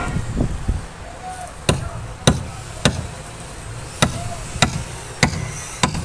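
Timber being struck by a hand tool in a steady rhythm: after a couple of seconds, sharp blows land about every 0.6 seconds, over a low background rumble.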